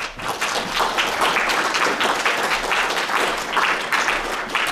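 Audience applauding, many hands clapping at once; it starts suddenly and tails off near the end.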